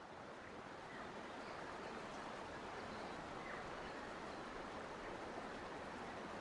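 Steady rush of flowing water, a forest stream, rising in level over the first second and then holding even.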